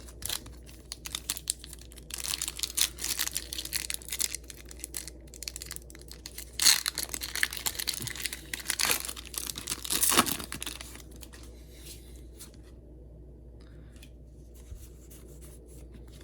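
Foil Pokémon TCG booster pack wrapper being torn open and crinkled. There is a run of rustling and ripping for about ten seconds, loudest near the middle, then only faint handling.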